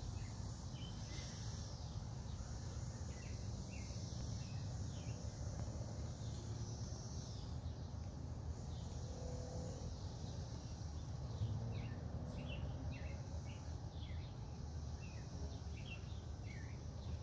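Outdoor ambience: small birds chirping in short, scattered notes that come more often in the last few seconds, over a steady low rumble and a steady high hiss.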